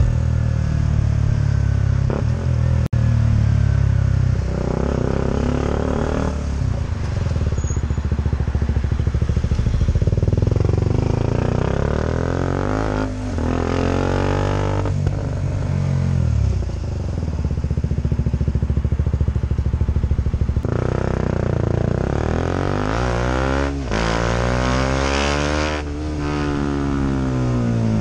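KTM Duke 125's single-cylinder four-stroke engine under way: its pitch climbs, breaks off and climbs again several times as the bike accelerates through the gears, and it rises and falls in long sweeps near the end.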